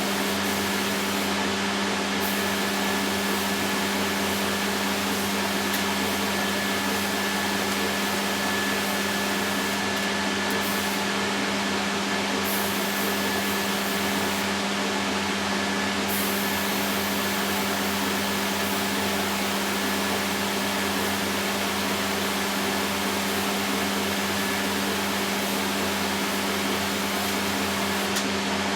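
A motor-driven machine running steadily: a constant hum with a hiss over it, unchanging throughout.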